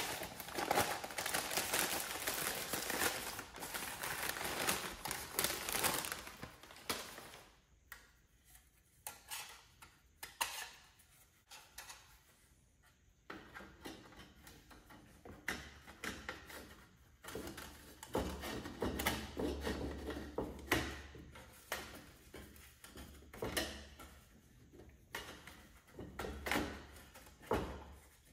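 Irregular clicks, knocks and light rattles of hard objects being handled, dense for the first six seconds and then more scattered.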